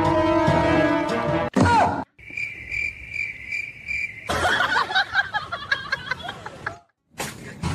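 Cricket chirping, a steady pulsed chirp about two and a half times a second, lasting about two seconds in the middle. Before it comes a loud held chord of tones that cuts off, and after it a jumble of short squeaky sounds.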